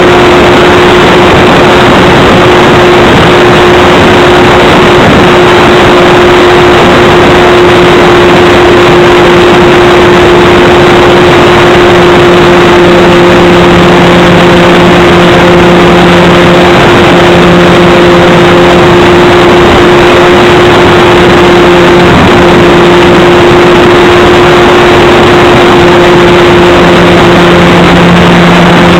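Model plane's electric motor and propeller running at a nearly constant pitch, heard through the onboard camera's microphone under heavy, distorted wind and airframe noise.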